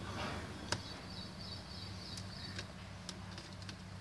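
Faint clicks of a screwdriver working the battery screws inside an opened Lenovo Z51-70 laptop, over a steady low hum. A faint high warbling chirp runs for about a second and a half near the middle.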